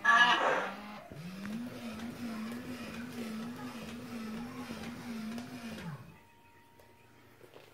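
Internal gear motor of a Kota the Triceratops animatronic toy whirring steadily with a regular wobble, about two or three pulses a second, then stopping about six seconds in. It opens with a brief loud pitched sound.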